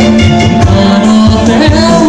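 Loud live Bihu band music through a PA system: a sustained melody with a voice singing over regular drum beats and rattling percussion.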